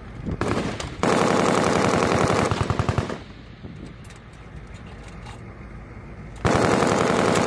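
Machine gun firing automatic bursts: a short burst, then a long one of about two seconds, and after a pause another burst of about a second near the end.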